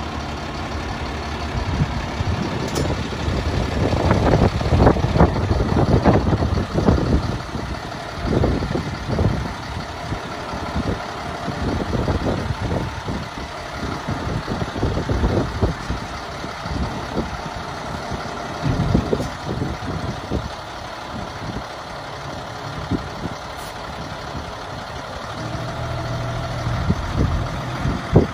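Ford Louisville single-axle grain truck running at idle while its hydraulic hoist lowers the raised grain box. Uneven rumbling bursts are strongest from about four to sixteen seconds in.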